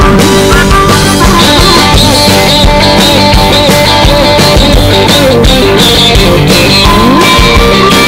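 Loud background music: a rock song playing.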